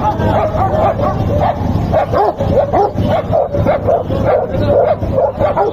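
Several dogs, Rottweilers among them, barking rapidly and without pause: many short overlapping barks and yips.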